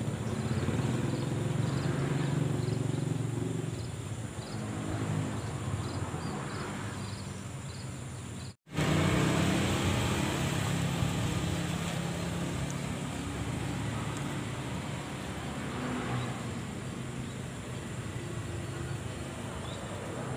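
A vehicle engine running steadily, heard as a low hum, which cuts out abruptly for a moment about eight and a half seconds in.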